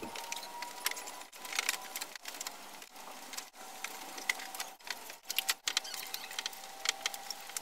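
Scattered light clicks and knocks of plastic and metal as a replacement radiator is worked down into place against the A/C condenser and its plastic clips.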